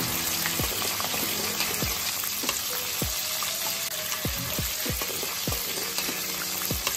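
Marinated chicken pieces deep-frying in hot coconut oil: a steady, dense sizzle with fine crackles.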